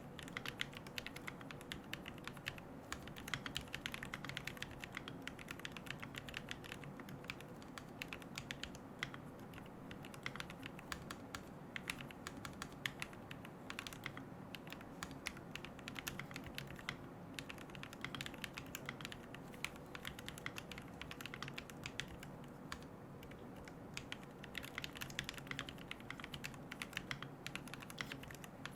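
Continuous typing on a QK75N mechanical keyboard fitted with Gateron Moon Landing switches, a carbon plate, no foam and MilkyWay Poker keycaps: a steady, irregular stream of keystroke clacks.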